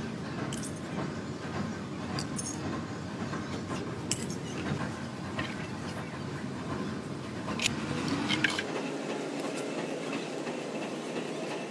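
Steady mechanical rumble of workshop machinery, with scattered light metallic clicks from stamped metal oil filter end caps being handled. The deep bass of the rumble drops away about two-thirds of the way through.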